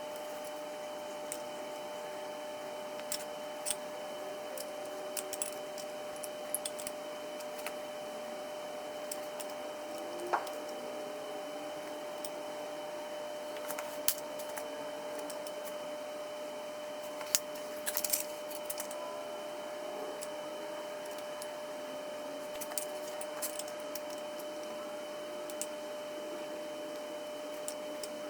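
Light, scattered metallic clicks and clinks of a small wrench and loose nuts being handled while working on an engine's bottom end, a few seconds apart, over a steady faint hum.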